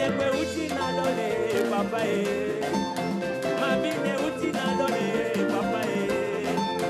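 Live gospel praise music: a band playing an upbeat song with a steady beat while a male lead singer sings into a handheld microphone.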